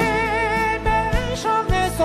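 Male singer with band accompaniment, holding a long note with vibrato, then moving on to new notes as a few low drum beats land about a second in.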